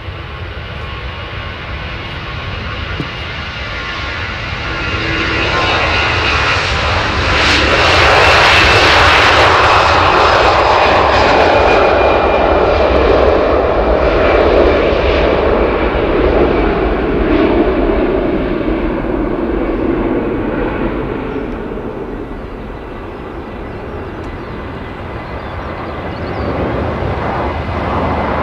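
Airbus A321 jet airliner on its takeoff roll. Its engine roar swells as it approaches, is loudest about eight to fifteen seconds in, then drops in pitch and fades as it passes by.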